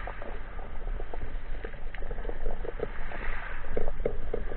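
Underwater noise picked up by a camera in a waterproof housing while the spearfisher swims: irregular soft clicks and crackles over a low rumble of moving water, with a brief rush of water noise about three seconds in.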